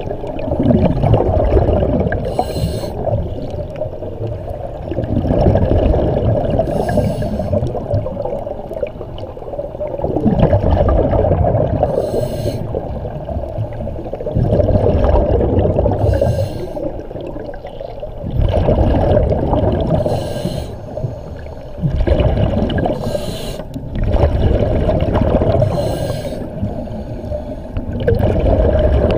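A scuba diver breathing through a regulator underwater. Each breath in is a short hiss, and each breath out is a longer rush of gurgling bubbles, repeating about seven times at roughly one breath every four seconds.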